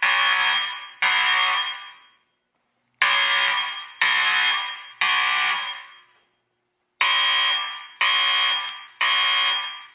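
Fire alarm sounding in the temporal-three evacuation pattern: groups of three loud one-second blasts, each starting sharply and fading, with a short pause between groups.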